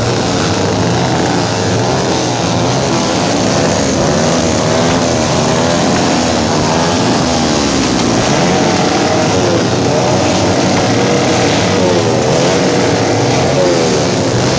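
Several motorcycles with loud open exhausts being revved over and over, their engine notes overlapping and rising and falling without a break.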